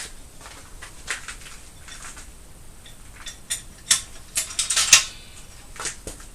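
Irregular metallic clicks and clanks of a car jack being set under the van and worked to lift it, loudest in a quick cluster about four to five seconds in.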